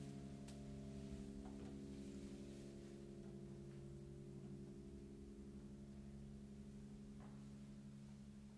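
Open grand piano's strings sounding a quiet, steady cluster of low held tones that fades slowly, with a few faint clicks.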